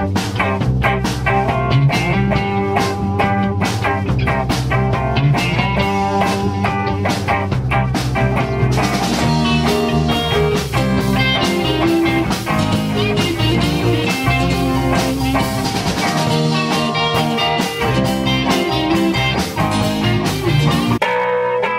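Rock band music with electric guitars over a steady drum beat; a fuller, brighter section starts about nine seconds in.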